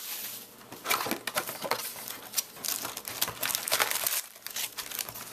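Foil wrapper of a Topps Chrome baseball card pack crinkling and tearing as it is ripped open and handled, with irregular crackles throughout.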